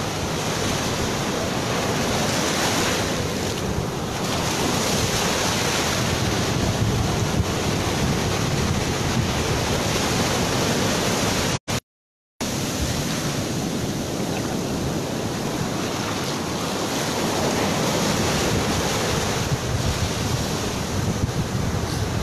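Ocean surf washing in and out over the beach, a continuous rushing wash with wind buffeting the microphone. The sound cuts out completely for under a second about halfway through.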